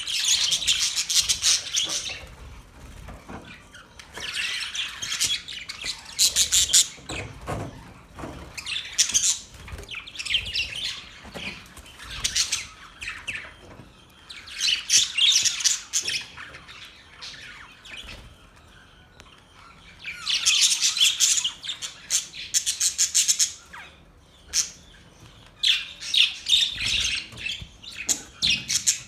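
Budgerigars chirping and chattering in bouts of a few seconds each, separated by short quieter pauses.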